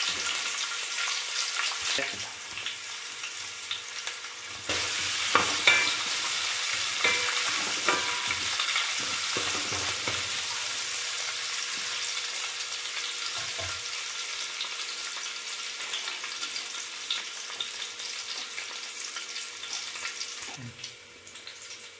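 Chopped ginger, garlic and curry leaves sizzling in hot oil in a granite-coated pan. A steady frying hiss runs under it, and a wooden spatula scrapes and taps against the pan as they are stirred, most of all in the first half. The sizzle grows louder about five seconds in.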